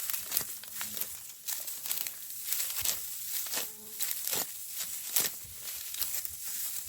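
Dry wheat stalks rustling and crackling as they are handled, with many irregular snaps.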